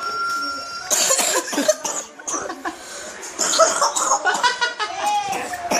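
A person coughing over and over, a run of harsh coughs.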